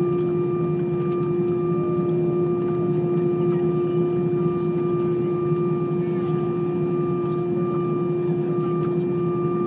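Steady cabin drone of an Airbus A320 taxiing with its engines at idle: a constant hum with several steady tones over a low rumble.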